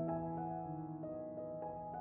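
Gentle background music: a few struck, piano-like notes over held low chords.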